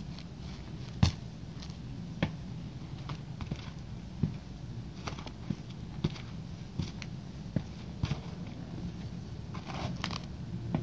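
Sneaker soles pressing and scuffing on brick pavement and on a second sneaker. This gives scattered sharp clicks and taps about once a second, the loudest about a second in, over a steady low hum.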